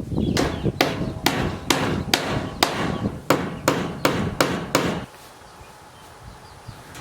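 Hammer striking repeatedly, about a dozen sharp blows at a steady two to three a second, fastening wire mesh to the wooden frame of a chicken coop. The hammering stops about five seconds in.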